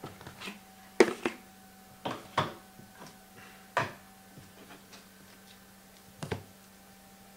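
Handling noise of trading-card boxes and packs on a tabletop: a few scattered knocks and clatters, the loudest about a second in, over a faint steady electrical hum.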